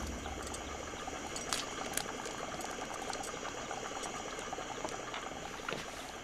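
Liquid bubbling in a glass lab flask heated over a burner flame: a fast, even patter of small bubbles. Two light clicks stand out about one and a half and two seconds in.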